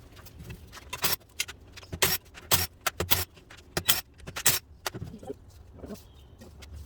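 A series of sharp metallic clinks and knocks at irregular intervals, with handling noise between: bolts and tools being handled while a car transmission is taken apart.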